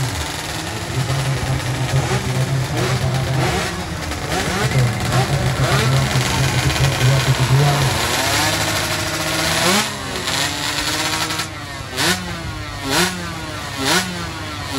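Small underbone motorcycle engines of a 116cc drag class revving, several overlapping at once, each rising and falling in pitch. Near the end, three short sharp throttle blips come about a second apart.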